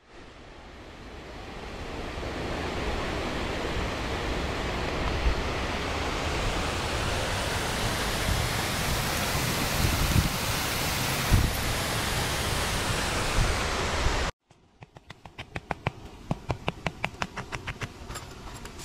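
Steady rushing of falling water from a waterfall, fading in over the first couple of seconds and cutting off abruptly about fourteen seconds in. A quieter run of quick, regular clicks follows, about four a second.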